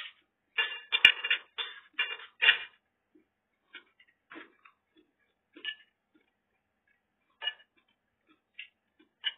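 Metal spoon and fork clinking and scraping against ceramic plates and a bowl: a quick run of clinks in the first few seconds, the loudest about a second in, then a few single clinks spread out.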